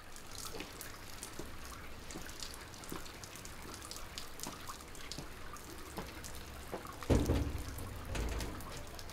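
Footsteps on a wet cobblestone lane, sharp clicks about two a second, over faint dripping and trickling of rainwater. About seven seconds in comes a louder thump with a rumble, as the man reaches a metal door.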